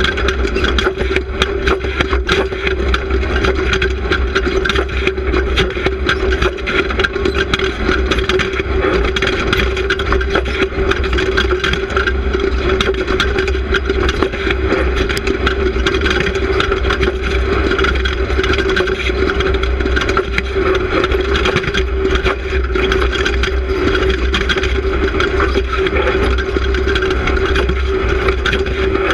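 Off-road race car engine running steadily at speed, heard from a camera mounted on the car, with constant rattling and clattering from the car as it drives.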